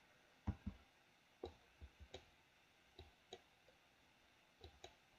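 About ten faint computer mouse clicks, mostly in quick pairs of button press and release, made while painting brush strokes.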